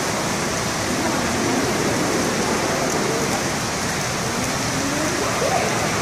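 Steady rush of falling water from a penguin exhibit's water feature, with faint voices under it.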